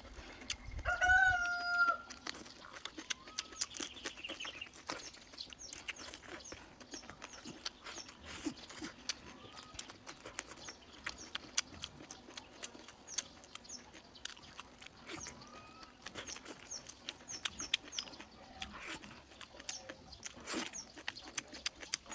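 A chicken gives one loud, drawn-out call about a second in, over close chewing and clicking of food and chopsticks. Short high chirps and a few brief calls come and go for the rest of the time.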